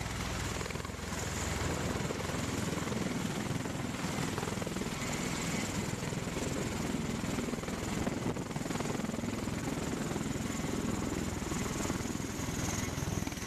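V-22 Osprey tiltrotor hovering and settling onto a flight deck with its rotors tilted up: a steady rotor thrum with a faint high turbine whine above it.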